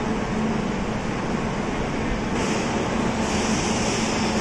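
Railway station platform din, with the steady hum of trains and machinery. A hiss joins about halfway through.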